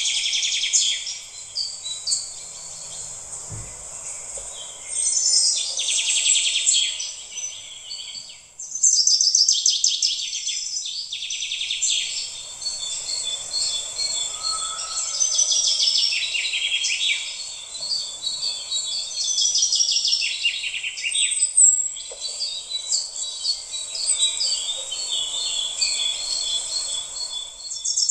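Dense chorus of many small birds chirping and twittering, high-pitched and continuous, briefly dropping away about eight seconds in.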